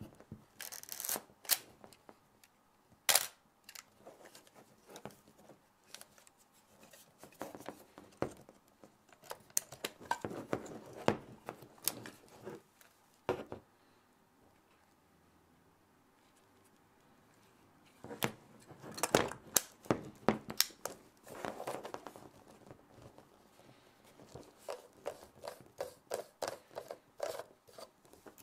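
Chinon CX II 35mm SLR camera being worked by hand: a long series of sharp mechanical clicks, snaps and rattles, the loudest a single sharp click about three seconds in, with a quiet spell of a few seconds in the middle. Near the end come quick small clicks as the M42 screw-mount lens is turned off the body.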